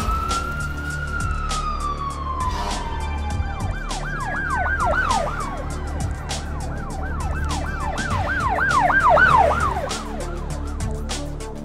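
Police car's electronic siren: a slow wail that rises and falls, then switches about four seconds in to a fast yelp, about two and a half sweeps a second, loudest near the end. A music bed with a steady beat runs underneath.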